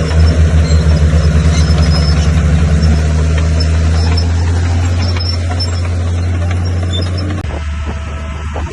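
Bulldozer's heavy diesel engine running under load: a loud, low, steady drone with a fast throbbing in the first few seconds that smooths out. The engine note drops and thins about seven and a half seconds in.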